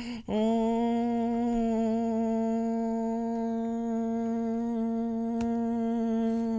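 A person's voice holding one long, steady hummed note for about six seconds; the pitch drops as it ends.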